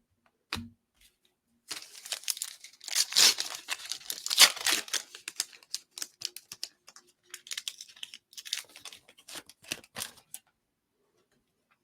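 A trading-card pack's wrapper being torn open and crinkled: several seconds of tearing and rustling, loudest early on its run, which stops a little before the end.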